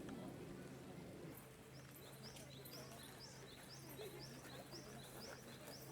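A bird gives a rapid run of short, high repeated chirps, about two or three a second, starting about two seconds in. Under it are faint outdoor ambience and a steady low hum.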